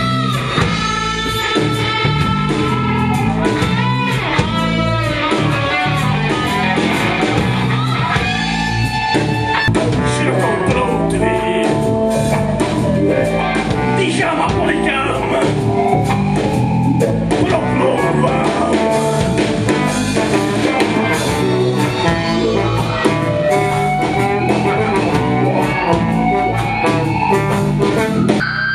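Live rock band playing: electric guitar and bass guitar over a Sonor drum kit, loud and unbroken.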